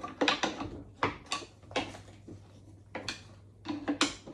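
Sharp metallic clicks and clanks, about eight at irregular intervals, from handling and working the steel windshield frame of a Dodge M37, its hinge joints frozen, over a steady low hum.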